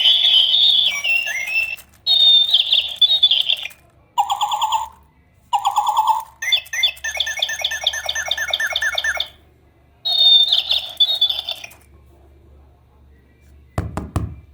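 Electric toy bird chirping and warbling in repeated short bursts of high trills and whistles with brief pauses, one rapid run of chirps in the middle, then stopping; a few knocks near the end.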